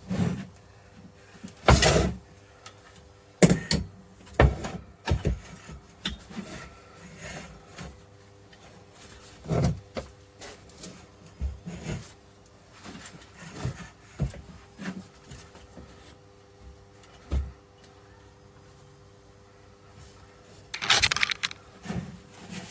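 Irregular knocks and clunks of parts being handled on a workbench, a dozen or so spread unevenly, over a faint steady hum, with a longer noisy scrape or rustle near the end.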